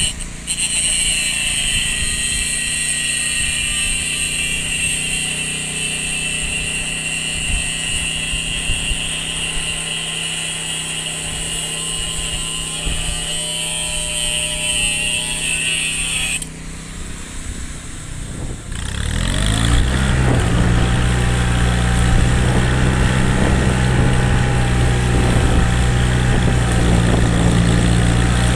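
A steady high-pitched machine whine runs for about sixteen seconds and stops. A couple of seconds later an engine speeds up and settles into a steady run.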